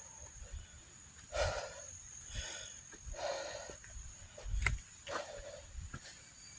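Heavy breathing of a hiker climbing a steep trail, a loud breath about every second, with footsteps crunching. A steady high-pitched whine runs behind.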